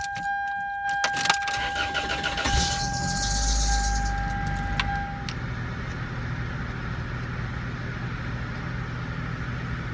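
A 1992 minivan's engine being started: clicks from the ignition, the engine catching about three seconds in, then idling steadily. A steady high tone sounds for the first five seconds or so.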